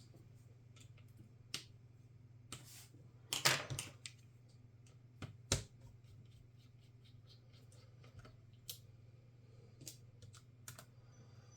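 Scattered small clicks and taps of hand tools and laptop parts being handled during disassembly, with a louder knock about five and a half seconds in.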